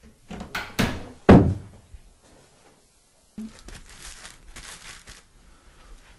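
A few knocks and thuds, the loudest a wooden door shutting about a second in. After a short silence, soft rustling of clothing.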